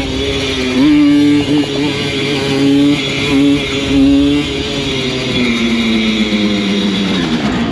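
Simson moped's two-stroke single-cylinder engine revving hard, the throttle snapped open and shut several times, then held with the pitch slowly falling as the revs drop.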